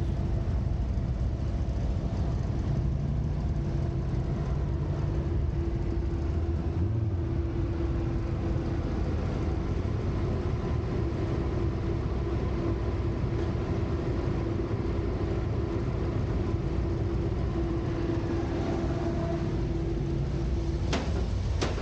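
Motorcycle engine running at low speed as the bike rolls slowly along, with a steady hum through it. A single sharp clunk comes about a second before the end.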